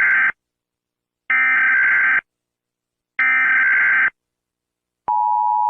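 Emergency Alert System digital data bursts (SAME header tones), a harsh buzzing warble: the tail of one burst, then two more of about a second each, evenly spaced. About five seconds in, the steady two-tone EAS attention signal begins.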